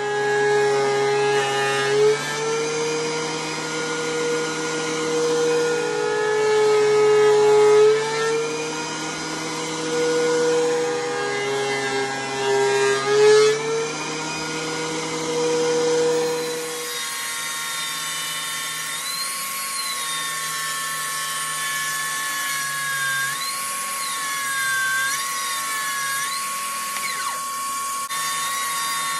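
DeWalt thickness planer running, its motor pitch dipping and recovering every few seconds as the board feeds through the cutterhead. About 17 seconds in it gives way to a Milwaukee M18 Fuel cordless table saw running with a steady high whine, its pitch wavering as wood is pushed through the blade.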